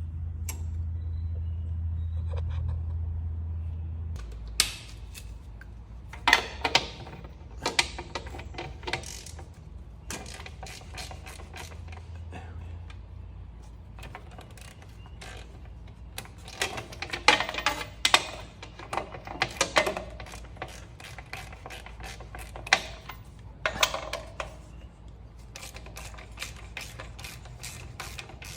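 Irregular sharp metallic clicks, knocks and rattles, some in quick clusters, as of hand tools and metal parts being handled during tractor repair work. A low hum underlies the first few seconds and drops away about four seconds in.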